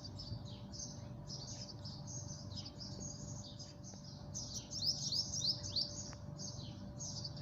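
Small birds chirping continuously in quick high notes, busiest a little past the middle, over a faint steady hum.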